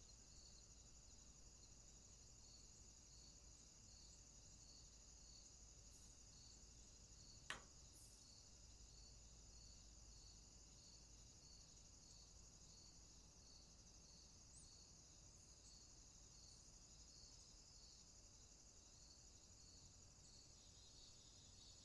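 Faint insect chorus of the cricket kind: a steady high trill under a slower chirp repeating a little more than once a second. A single sharp click comes about seven seconds in.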